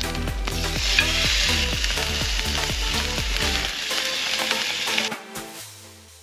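T-bone steak sizzling as it goes into a hot frying pan over a campfire, with the hiss of the searing meat starting about half a second in. The sizzle fades out about five seconds in.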